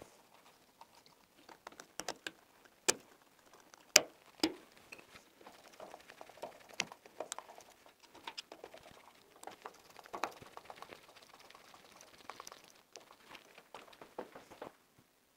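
Hand-work on a flush-mounted socket and switch: irregular light clicks, taps and scrapes from wires, the metal mounting frame and a screwdriver, with one sharper click about four seconds in.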